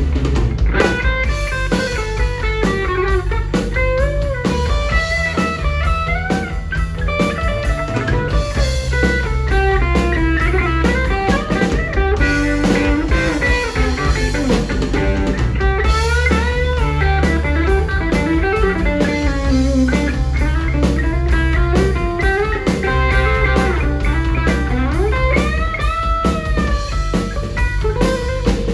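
Live rock trio playing an instrumental passage: a Stratocaster-style electric guitar plays a lead line full of string bends over bass guitar and drum kit.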